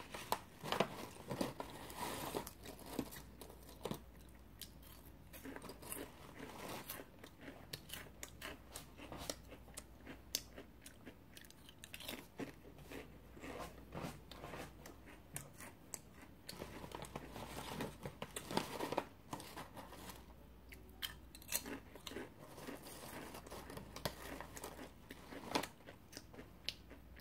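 Chewing and biting of crunchy snacks: irregular small crunches and clicks, with a few sharper bites, picked up close to the mouth.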